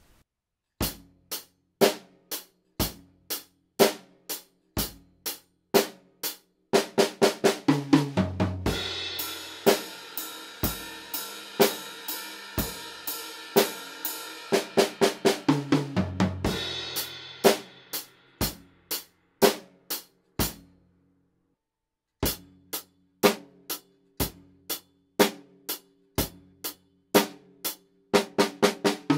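A drum kit played, snare, bass drum, hi-hat and cymbals: single drum strokes about twice a second, then a full beat with cymbals from about seven seconds in to about twenty, a short break, then single strokes again. It is a room-sound comparison, part recorded in the bare small room and part with moving blankets hung to damp the reverberation.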